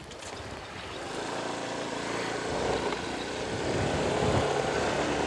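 Motor scooter engine pulling away and picking up speed. It grows louder over the first few seconds, then runs steadily.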